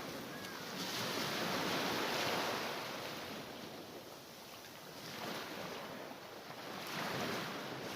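Mediterranean sea waves washing onto the shore, the surf noise swelling and ebbing as successive waves break, loudest about a second in and again near the end.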